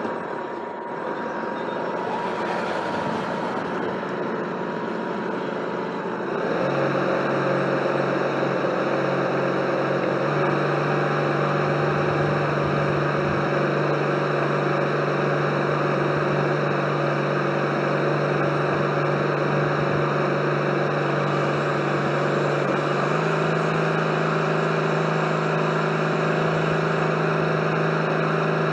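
Radio-controlled model DUKW amphibious truck running on the water, heard from on board: a steady hum with several held tones over a rush of noise. The hum comes in a few seconds in and steps up in pitch twice.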